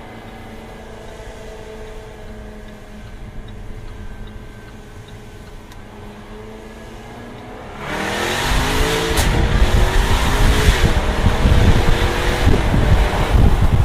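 Jaguar F-Type R's supercharged V8 running at light load, then, about eight seconds in, going to full throttle: the engine and exhaust suddenly get loud and climb in pitch as it accelerates hard, with a single sharp crack about a second later.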